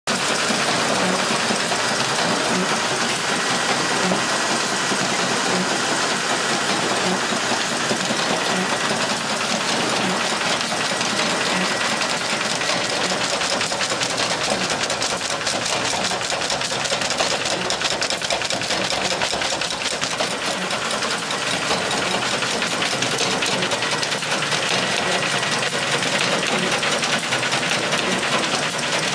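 Paper-flag assembly machine running steadily: a rapid, even mechanical chatter, with a faint thin high tone coming and going.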